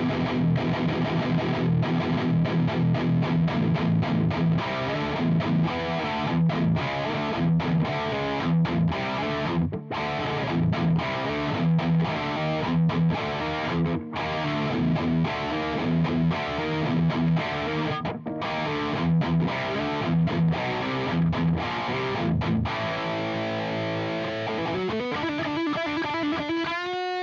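Electric guitar played through a JOYO Dark Flame distortion pedal, a clone of the Revv G3: a fast, rhythmic riff of short, repeated low notes. Past the twenty-second mark it gives way to a ringing chord and then a single held note with vibrato near the end.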